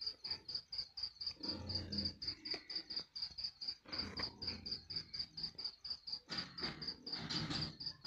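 A cricket chirping in a steady, even rhythm of about five high chirps a second. Faint low rustling comes and goes beneath it.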